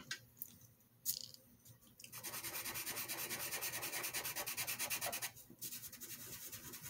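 Soft pastel pencil scribbling fast back and forth on paper, a scratchy rubbing made of quick even strokes that runs loudest for about three seconds and then goes on more softly. A couple of light taps come in the first second.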